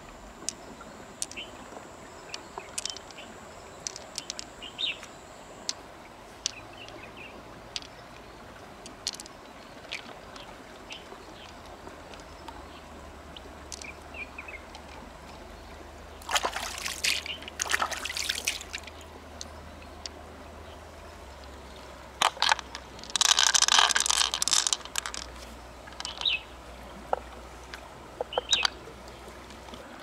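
Hands working opened freshwater mussels and their pearls: scattered small clicks and taps of pearls and shell, with two louder bursts of water sloshing a few seconds apart past the middle.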